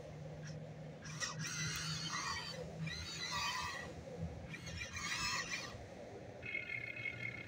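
Electric gear motors of a Huina 1592 RC excavator whining in short bursts, each under a second, as the boom and bucket are worked, with a steadier whine near the end.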